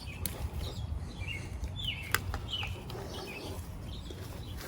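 Small birds chirping now and then, with a couple of sharp clicks, the clearest about two seconds in, over a steady low rumble.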